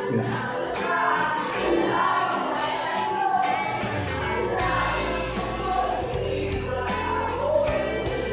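Background music with a choir singing; a low bass line comes in about four seconds in.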